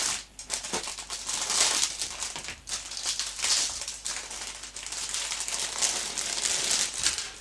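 A clear plastic bag crinkling in irregular bursts as a plastic kit sprue is pulled out of it by hand.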